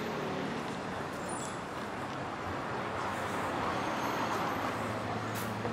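City street traffic noise: a steady hiss of passing vehicles with a low engine hum beneath, swelling about halfway through as a vehicle goes by.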